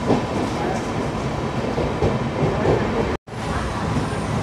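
Deccan Queen Express passenger train running along the track, a steady, loud running noise that breaks off abruptly for a moment about three seconds in, then carries on.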